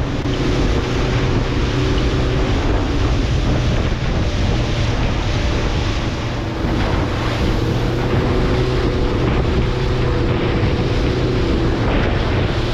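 Boat engine running steadily at speed through rough chop, with water rushing against the hull and strong wind buffeting the microphone.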